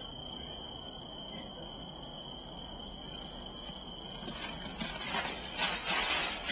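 A steady high insect trill with quick chirps repeating over it. About five seconds in comes a short loud burst of scuffling and spraying sand as giant kangaroo rats leap and kick up dust.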